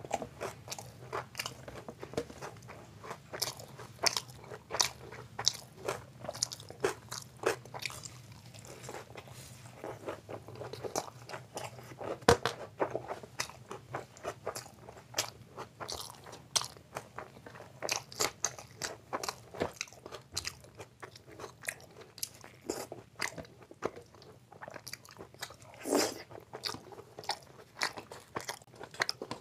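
A man chewing saucy Manchurian pieces and fried rice close to the microphone: a steady stream of sharp, wet mouth clicks and smacks, with an occasional louder bite, about twelve seconds in and again near the end.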